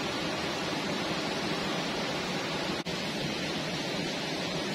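Steady rushing of a fast-flowing river over rocks, with a momentary break about three seconds in.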